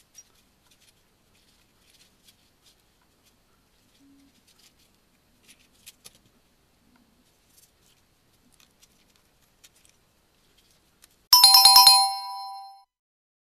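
Faint scattered clicks and taps, then about eleven seconds in a bell rings loudly in a fast trill for under a second and fades out.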